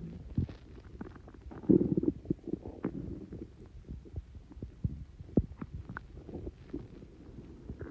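A human stomach gurgling and rumbling, bloated with fizz from Coke and Mentos: irregular low bubbling broken by many small pops, with the loudest surge about two seconds in.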